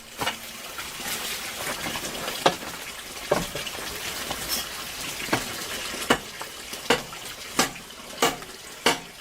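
A run of sharp knocks over a steady rushing, water-like noise; the knocks come at a steady pace of about three every two seconds in the second half.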